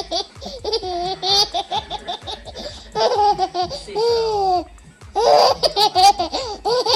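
A baby laughing in rapid, high-pitched bursts, in three spells with short breaks between them.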